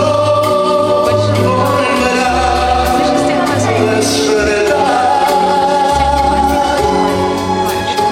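A song: singing with long held notes over a backing track with a bass line and a steady beat.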